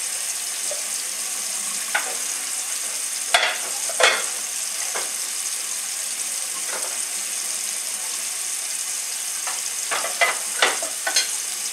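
Steady hiss of running tap water over a sink during hand dishwashing, with scattered clinks and knocks of dishes being handled. The knocks come a few at a time, with a quick cluster of them near the end.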